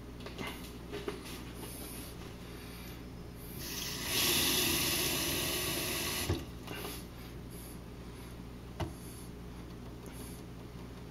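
Kitchen faucet turned on, water running into the sink for about two and a half seconds, then shut off with a click of the lever. A few light knocks come before and after.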